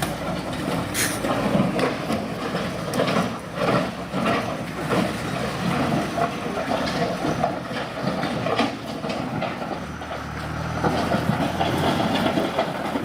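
A vehicle or heavy machine running, with repeated clattering and knocks throughout.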